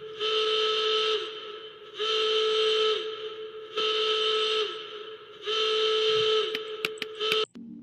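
A horn-like alarm tone sounding in four long steady blasts with short gaps, each sagging in pitch as it dies away. A few sharp clicks come near the end, and the sound cuts off suddenly.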